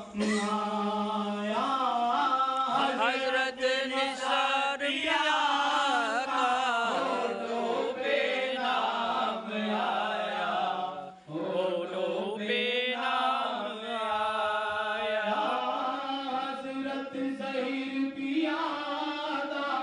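A man singing a Sufi devotional song into a microphone, in long gliding melodic lines, with a brief pause about halfway through.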